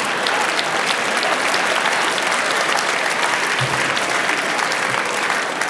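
Large theatre audience applauding steadily in response to a joke's punchline.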